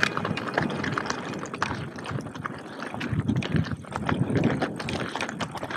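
Mountain bike clattering over rocky trail: irregular knocks and rattles from the bike's frame and parts over a steady rumble.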